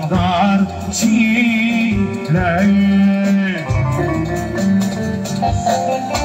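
Live music: a man sings a held, wavering note into a microphone over electronic keyboard accompaniment, then the keyboard carries on alone with a melodic interlude.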